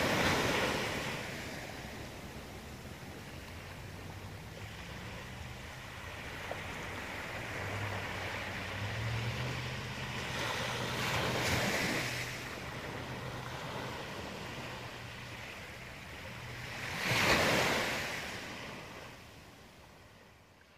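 Small waves breaking and washing up on a sandy beach, three louder breaks over a steady wash, with a low steady hum underneath. The sound fades out near the end.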